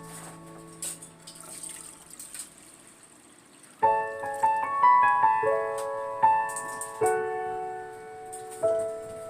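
Background piano-style keyboard music. A held chord fades out, and after a quiet gap of about three seconds a melody of single struck notes starts.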